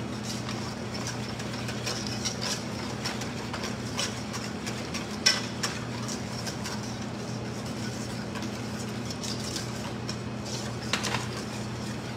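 Wire whisk clicking and scraping against a stainless steel bowl as lemon curd is stirred while it cooks and thickens, with a sharper clink about five seconds in. A steady low hum runs underneath.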